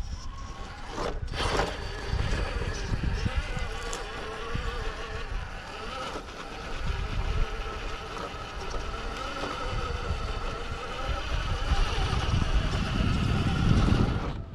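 RC rock crawler's electric motor whining as the truck creeps along over rock, its pitch wavering up and down with throttle, over a low rumble of the tires and chassis working on the rock.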